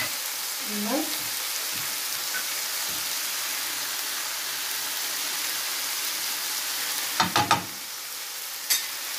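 Liver strips and sliced peppers sizzling in a frying pan: an even, steady hiss. A few sharp clicks come about seven seconds in, and one more near the end.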